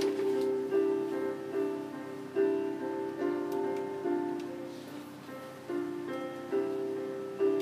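Piano playing a slow passage of chords, a new chord struck about every second and left to ring.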